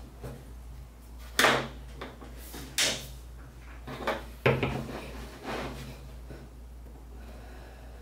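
A steel vernier caliper handled against a wooden board on a cutting mat: about six short scrapes and light knocks as the slide is moved and the jaw is set and drawn along the wood, over a steady low hum.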